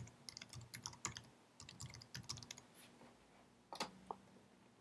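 Typing on a computer keyboard: a quick, faint run of key clicks for about three seconds, then a single louder click a little under four seconds in.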